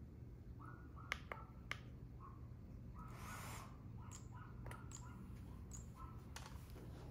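Faint sharp clicks of a DJI Air 2S drone's battery power button being pressed, among repeated short, high chirp-like tones and a brief swish about three seconds in.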